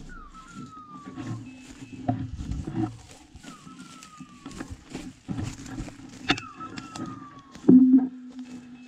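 A dog's beeper collar gives a descending electronic whistle about every three seconds, over crunching footsteps through dry leaves and brush. A steady low tone runs underneath and swells into a short, loud burst about three-quarters of the way in.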